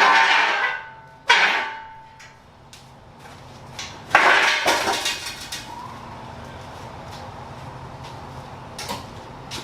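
Loud clattering and scraping of metal tools and shop items being moved about, three sharp bursts that each die away over a second or so, followed by a steady low hum.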